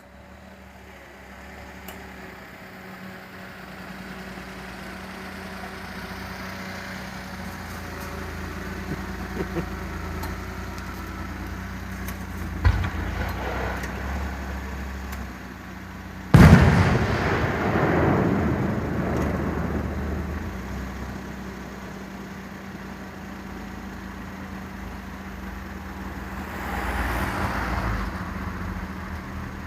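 Fireworks: a smaller bang, then a loud shell burst about halfway through followed by several seconds of crackling, with more crackle near the end, over a steady low hum.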